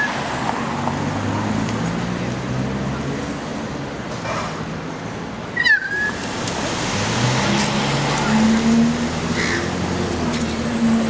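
Steady outdoor noise of a demolition site: a diesel engine hum with traffic-like rumble, and a short squeak about six seconds in.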